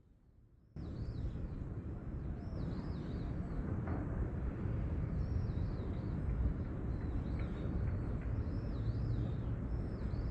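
Birds chirping over and over in short falling calls, over a loud, steady low rumble of outdoor noise. The whole sound starts abruptly about a second in and cuts off abruptly at the end.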